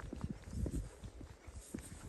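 Footsteps of a person walking on an outdoor path: a quick, irregular run of steps and scuffs over a low rumble.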